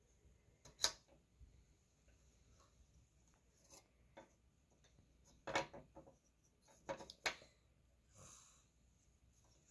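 Wooden puzzle pieces clacking and sliding against each other and a wooden tabletop as a child handles them. There are a few sharp knocks, one about a second in and several between five and seven and a half seconds in.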